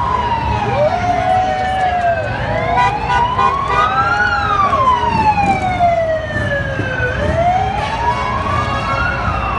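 Emergency vehicle siren wailing slowly up and down, about one rise and fall every five seconds, with a second siren sweeping alongside it, over the steady noise of a large crowd.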